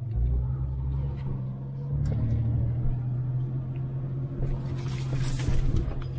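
Vehicle engine running with a steady low hum and rumble while being driven off-road. About four and a half seconds in, a rushing, hissing noise rises over it for about a second and a half.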